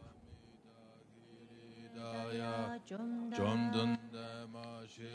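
Buddhist chanting in a low monotone, the voice held on one steady pitch while the vowels shift. It is faint for the first two seconds and comes back strongly about two seconds in.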